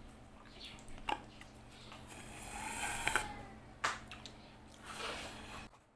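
Faint eating sounds: chewing, with a few light clicks.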